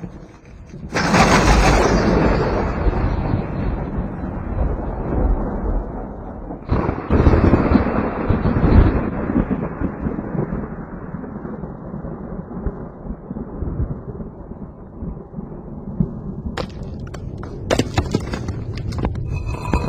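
Two loud thunderclaps about six seconds apart, each breaking suddenly and rolling off into a long, low rumble. A few sharp cracks come near the end.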